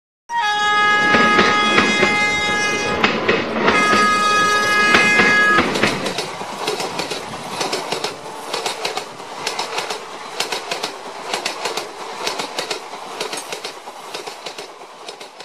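Train horn sounding twice, a long blast and then a shorter one. Then the train's wheels clatter over the rail joints in a regular clickety-clack that fades as the train moves away.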